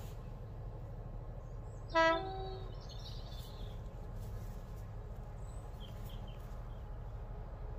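Approaching diesel freight locomotive sounding its two-tone horn once, briefly, about two seconds in: a short lower note stepping straight up to a slightly higher one. A steady low rumble runs underneath, and birds chirp faintly after the horn.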